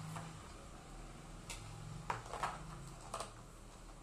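Several light clicks and taps of the plastic power base and cord of an electric kettle being handled, over a low steady hum.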